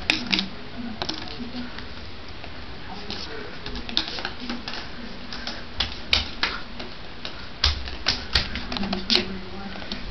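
Plastic vertical blind slats clacking and rattling in irregular sharp clicks, a cluster of them near the end, as a kitten pushes through them.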